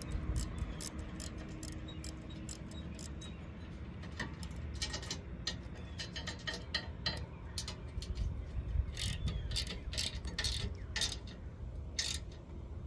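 Irregular sharp metallic clicks and clinks of bolts, washers, nut and wrench as a cast-iron bench leg is bolted onto the seat, over a low steady background rumble.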